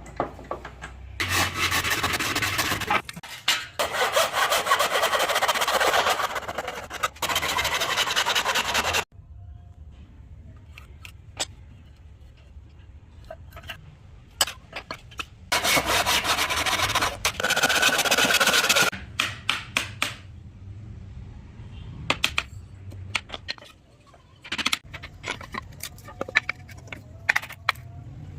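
A tool rubbing hard over wood in rapid strokes during two long spells, about eight and three seconds long, with scattered knocks and taps between them.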